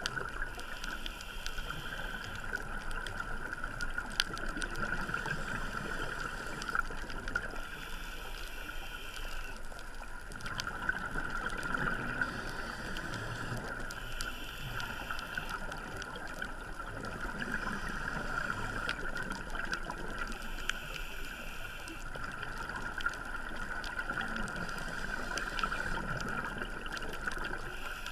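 Scuba diver breathing through a regulator, heard underwater: a hiss on each inhale about every six seconds, with gurgling exhaled bubbles between, over a steady whine.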